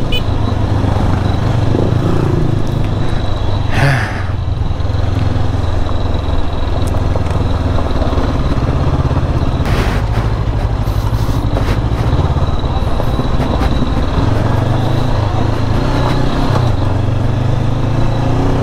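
Motorcycle engine running steadily under a constant rush of wind and road noise, with a couple of brief knocks.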